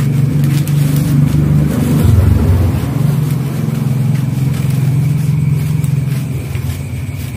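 A steady, loud, low engine-like hum that dips lower for a moment about two seconds in, with faint snips of scissors cutting through newspaper.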